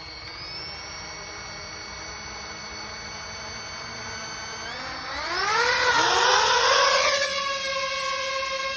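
DJI FPV drone's motors and propellers whirring at a low steady pitch, then spooling up with a sharply rising whine about five seconds in as the throttle comes up, and holding a steady higher whine near the end.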